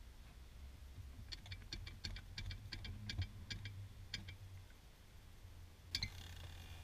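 Light, rapid ticking, about four or five clicks a second for roughly three seconds, from a floor jack, chain and wooden lever under strain as the jack lifts against a stump. About six seconds in comes one sharper metallic click with a brief ring.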